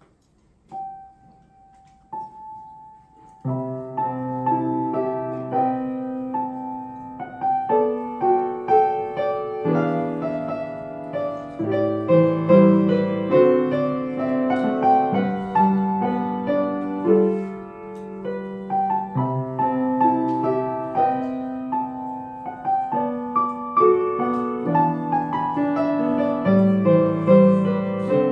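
Solo piano playing a piece. It opens with two single held notes, then moves into steady chords under a melody from about three seconds in.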